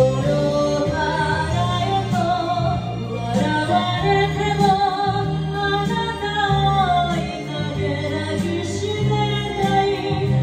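Slow Japanese Shōwa-era pop ballad: a woman singing to a backing track, the melody gliding over long held bass notes.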